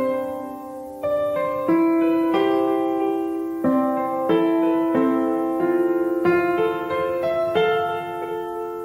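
Background piano music: gentle chords struck about every three-quarters of a second, each ringing on and fading.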